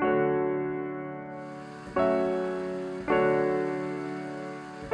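Background piano music: slow chords, each struck and left to ring out, about one every one to two seconds.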